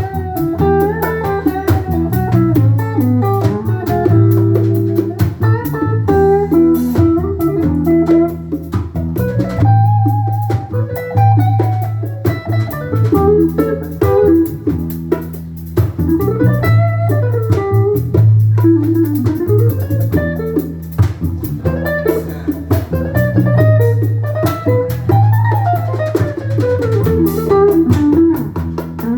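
Instrumental blues-rock band music: an electric lead guitar plays a solo with bending notes over bass guitar and a drum kit.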